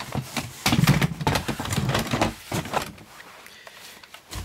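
Hands rummaging in a cardboard box of plastic Nerf blasters: irregular knocking, clattering and scraping of plastic against plastic and cardboard, dying down after about three seconds to quieter handling.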